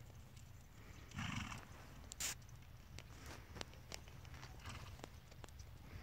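Two horses walking on grass: a short, noisy snort from a horse about a second in, a sharp loud click just after two seconds, then scattered light clicks over a low steady rumble.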